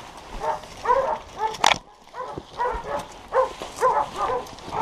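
Hunting dogs barking over and over, about two barks a second, baying at a wild boar they are holding in its bed. A single sharp snap cuts in about a second and a half in.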